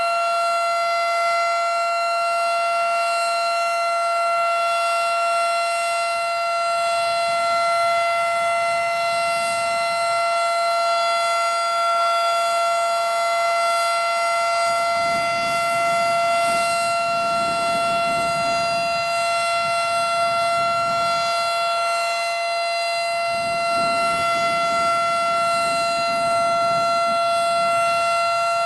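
Federal Signal Model 5 outdoor warning siren sounding a steady, unwavering tone, the steady alert signal of a siren test.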